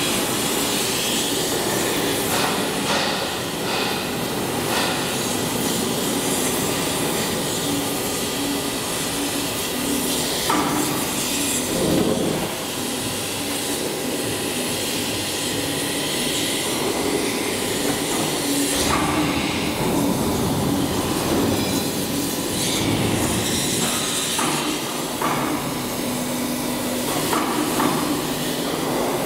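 Small four-roll CNC hydraulic plate rolling machine running as its rolls bend a steel sheet: a steady mechanical drone with a low hum that comes and goes. A few sharp metal knocks, the loudest about twelve seconds in.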